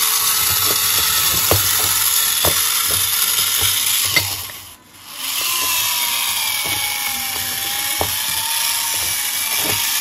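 Small electric motor and gearbox of a scale RC crawler whining as it drives in its low off-road gear, with irregular clicks and knocks as the chassis and tyres climb over steel washers and bolts. The sound drops out briefly about halfway.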